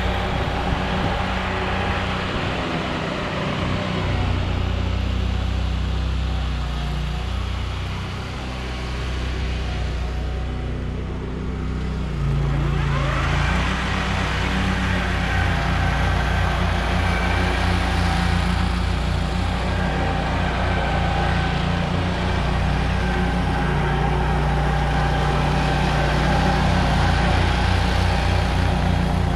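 Ride-on lawn mower's engine running steadily as it mows. It gets louder about twelve seconds in, as the mower comes closer.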